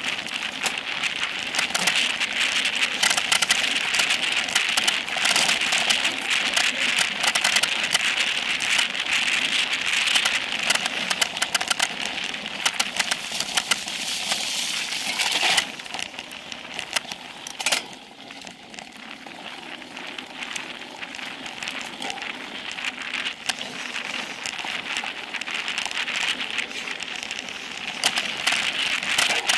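Specialized Epic Pro mountain bike descending dry dirt singletrack at speed: tyres crunching over the dirt and gravel with a dense, constant rattle of clicks from the bike. The noise drops off a little past halfway and builds up again near the end.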